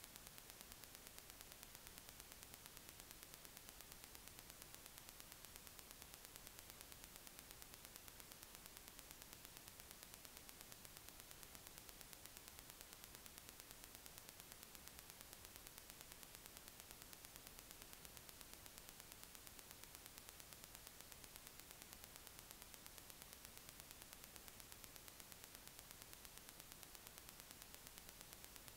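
Near silence: a faint, steady hiss of recording noise.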